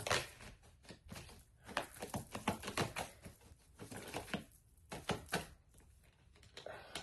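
Tarot cards being handled on a table: an irregular run of light taps, flicks and slides as cards are moved and laid down, with a couple of quieter gaps.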